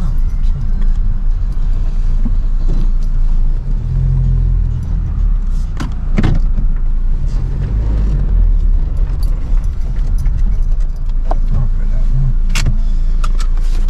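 Car cabin noise while driving: a steady low rumble of engine and road, with a few short clicks and knocks.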